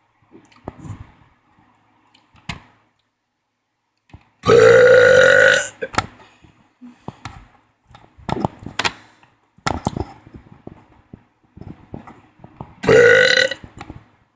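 A person burping deliberately and loudly twice: a long burp of over a second about four seconds in, and a shorter one near the end. Short, quieter clicks and knocks come between the two burps.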